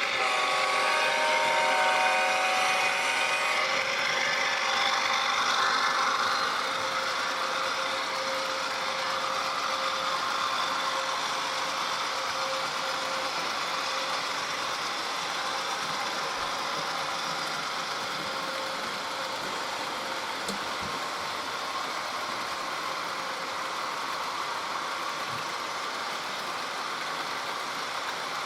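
HO-scale model GE ES44AC diesel locomotives running with their ESU LokSound decoder sound: the horn sounds a chord of steady tones for the first few seconds, then the diesel prime mover runs steadily.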